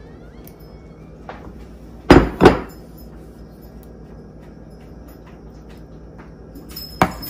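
Two heavy knocks about two seconds in, half a second apart, as a ceramic bowl of tomato sauce is set down on a countertop. Another sharp knock comes near the end.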